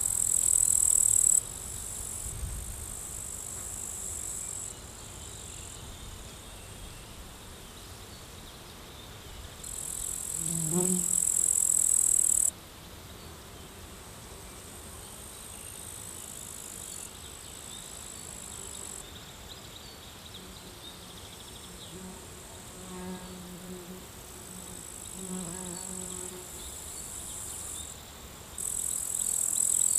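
Field insects stridulating: a high-pitched chirring in bouts of one to a few seconds that start and stop abruptly. A bee buzzes past about ten seconds in, and bee buzzing comes and goes again for a few seconds past the middle.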